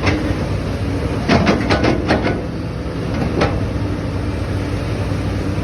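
XCMG 370CA excavator's diesel engine running steadily under work, with a quick cluster of sharp knocks about a second in and a single knock in the middle.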